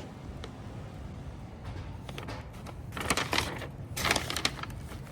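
Wiring harness being handled: two short bursts of rustling and crinkling, about three and four seconds in, over a low steady hum.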